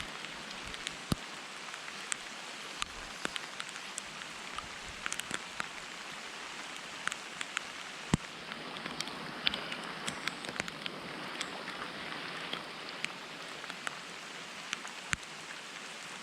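Rain falling steadily, an even hiss with frequent sharp taps of single drops landing close by.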